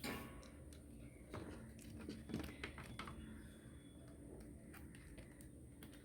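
A few faint clicks and taps from small electronic parts and tools being handled during a repair, over a low steady hum.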